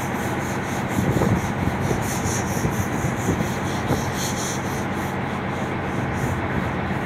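Mount Washington Cog Railway train running on the rack track as it pulls away: a steady low engine hum under a continuous scraping, grinding noise.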